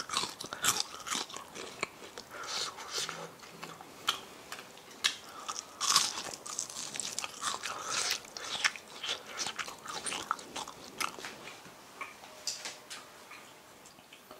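Close-miked biting and chewing of deep-fried food in a plain wheat-flour batter, with a dense run of irregular crisp crunches. The loudest crunches come near the start and again around the middle.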